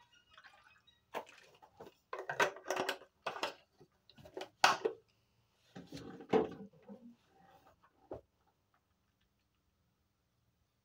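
Handling noises from a plastic mouthwash bottle being capped and set down: clicks, knocks and rustling in irregular bursts, stopping after about eight seconds.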